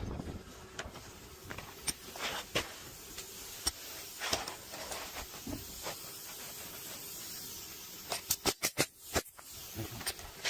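Pneumatic roofing nailer driving shingle nails: a few single shots, then a quick run of about six shots near the end.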